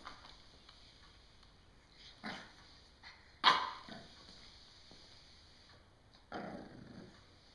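French Bulldog puppy barking in play, three short barks: one about two seconds in, the loudest about three and a half seconds in, and a lower, longer one near the end.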